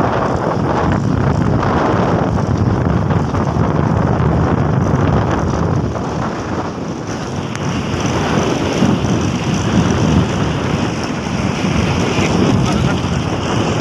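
Loud wind buffeting the microphone of a moving motorcycle on a downhill road. The rush eases a little around six seconds in, then picks up again.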